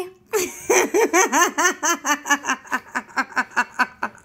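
A person laughing in a long run of quick, high-pitched giggles, about seven a second, slowly sinking in pitch and tailing off near the end.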